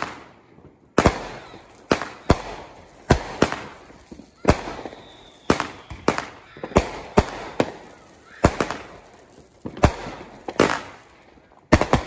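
Aerial fireworks going off in a rapid series of sharp bangs, one to two a second, each fading off in a short echo. The bangs start about a second in and keep coming, with a short gap near the end.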